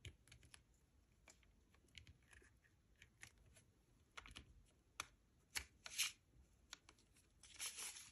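Fingers tapping and sliding on a plastic CD jewel case while working the paper booklet free from the cover's tabs: faint scattered clicks, then a short paper rustle near the end as the booklet comes out.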